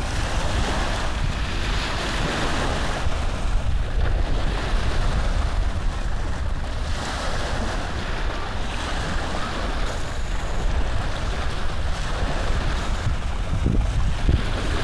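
Steady rushing background noise with a strong low rumble.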